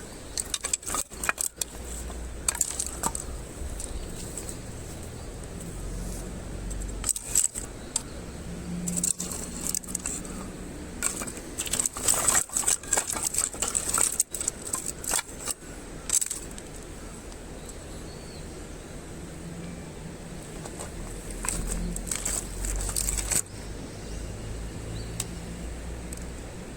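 Irregular bursts of light clicks and clatter, clustered in several runs with the busiest stretch in the middle, over a steady low rumble.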